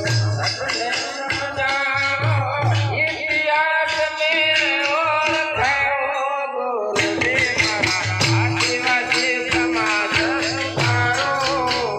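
An elder man singing a devotional folk song over a steady drone, with a drum beating in the bass and shaker- or rattle-like percussion clicking along.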